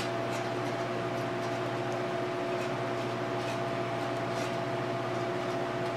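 Steady mechanical hum with two steady tones, under a few faint light ticks as a thin wire is worked through a small copper-pipe ferrule on paracord.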